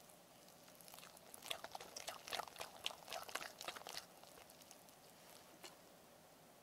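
Metal wire whisk beating thick whole wheat crepe batter in a glass bowl: a quick run of clicks and scrapes as the wires hit the glass and churn the batter, busiest from about one to four seconds in, then thinning to a few faint strokes.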